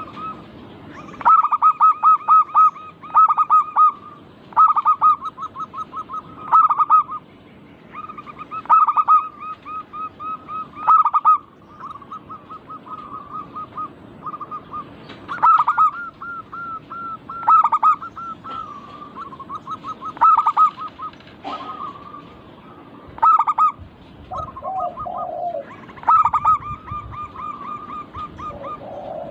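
Zebra doves (perkutut) singing: repeated phrases of quick stuttering coos, one after another every second or two. A lower call joins briefly about 25 seconds in.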